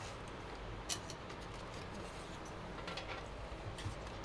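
A few light clicks and taps of hands working cables and parts inside a metal PC case: one sharp click about a second in, then a small cluster of fainter ticks near the end.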